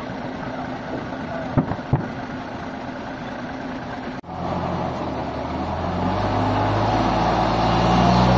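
A vehicle engine runs steadily, with two sharp knocks about a second and a half in. After an abrupt break, an engine picks up and grows louder as it comes under load.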